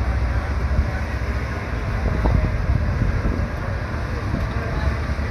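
Wind buffeting the microphone over a low, steady rumble.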